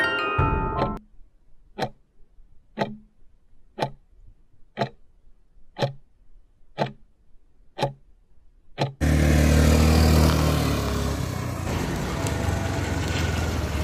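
A chiming music sting ends in the first second, followed by a clock ticking about once a second, eight ticks in all. About nine seconds in, a motor scooter's engine starts running loudly and steadily.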